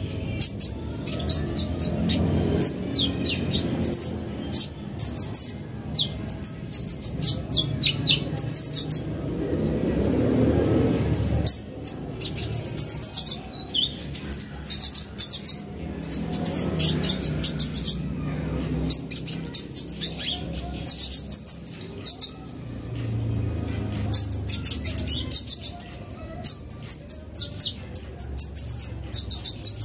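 Van Hasselt's sunbird (kolibri ninja) singing: fast runs of high, thin chirps and trills in bursts, with short pauses about nine, eighteen and twenty-two seconds in.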